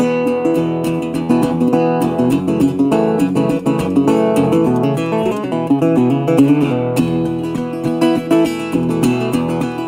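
Background music: acoustic guitar playing a steady run of quickly plucked notes.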